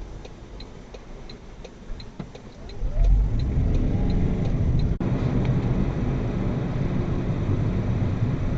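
A car's turn indicator ticking steadily, about one and a half ticks a second, inside the cabin. About three seconds in, the engine note rises and the engine and road noise jump up as the car accelerates, then settle into steady driving noise.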